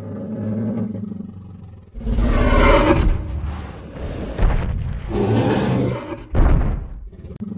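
Tyrannosaurus rex roar sound effect: a low rumbling growl, then two long rough roars, with a short third burst near the end.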